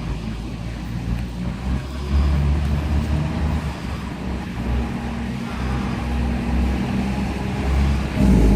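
Low, steady engine rumble of a running vehicle.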